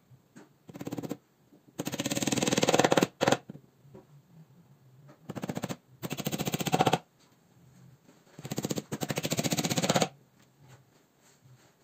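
A small hammer tapping very rapidly on the wooden panel of a flat-pack shoe cabinet during assembly, in about five bursts of quick taps lasting up to a second or so each, with pauses between.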